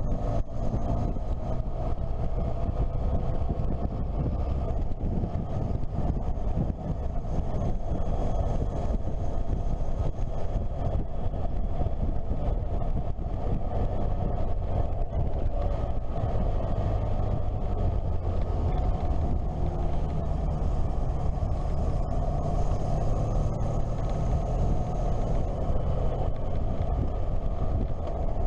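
Motorcycle engine running at road speed, a steady drone whose pitch drifts gently up and down through the bends, mixed with wind and road noise at the camera.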